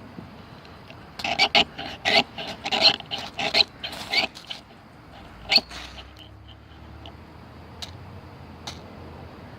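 Leatherman Style CS multitool scraped hard along a ferro rod to throw sparks: a quick run of about a dozen short rasping strokes starting about a second in, then one more stroke a little past the middle.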